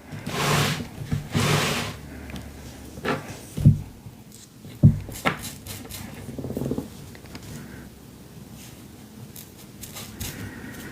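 Paper being handled for collage: two rustling swishes in the first two seconds, then scattered small taps and clicks as the pieces are worked.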